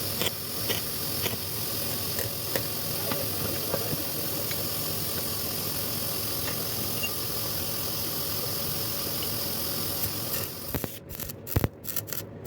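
Electric welding arc burning with a steady crackling hiss and a few faint pops, then stopping and restarting in short spurts with sharp clicks about eleven seconds in.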